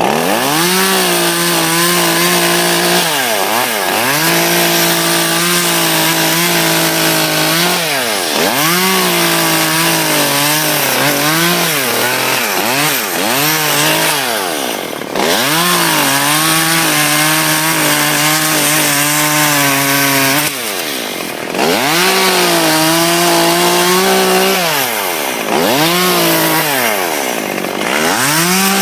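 Chainsaw running hard while cutting up tree limbs, its engine pitch dropping and climbing back about five times as the throttle is eased and opened again between cuts.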